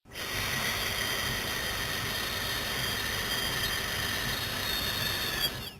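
A long, slow, even hiss of exhaled breath: the lung healing sound "sss", breathed out through closed teeth with the corners of the mouth drawn back. It starts abruptly and cuts off just before the end.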